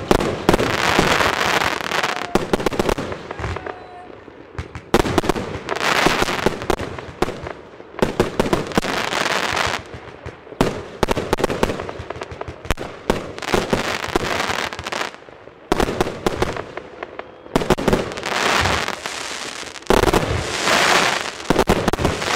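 Broekhoff Magnum P.I. 288-shot compound firework cake firing in rapid strings of shots, its aerial bursts crackling. It comes in repeated waves a few seconds long, with brief lulls between them.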